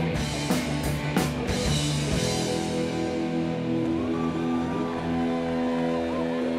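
Live rock band playing through amplifiers: drum kit hits and cymbal crashes in the first second and a half, then the drums drop out and electric guitars and bass ring on held chords, with bent notes wavering over the top in the second half.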